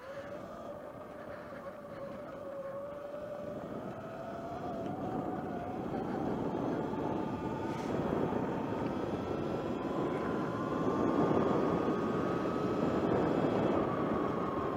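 Sur Ron electric dirt bike's motor whining as it rides, the whine rising slowly in pitch as the bike picks up speed over the first ten seconds or so, then holding. The tyres rumble on the gravel track underneath it.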